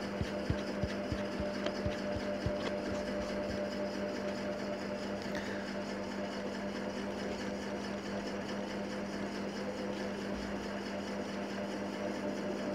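A steady low background hum with hiss, and a run of faint clicks in the first two or three seconds.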